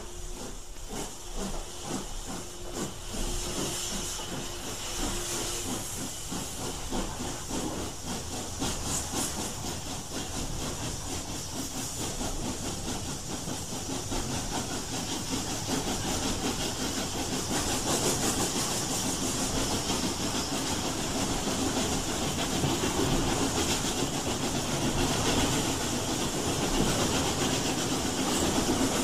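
Steam locomotive hissing steam steadily, growing gradually louder, with a faint held tone in the first few seconds.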